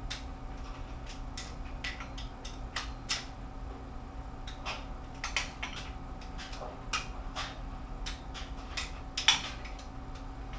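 Irregular metallic clicks and clinks of a socket wrench on engine cylinder-head bolts as they are rechecked for tightness, with one louder click about nine seconds in, over a steady hum.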